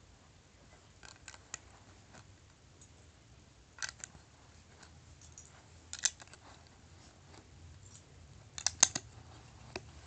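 LEGO plastic pieces clicking as white tiles are handled and set onto a LEGO plate: scattered sharp clicks, a few about a second in, single ones near four and six seconds, and the loudest quick cluster near the end.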